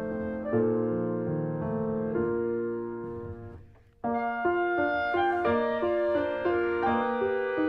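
Piano music. It fades away about halfway through, and a new piano passage starts abruptly just after.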